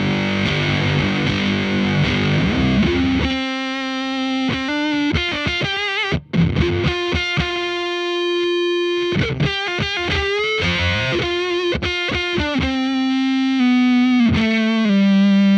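Electric guitar through a FuzzHugger FX Lab Ratchet fuzz pedal into a Laney VC30 valve amp, played on the neck pickup with the tone rolled off. A dense, fuzzy strummed passage lasts about three seconds, then gives way to single sustained lead notes with bends and vibrato.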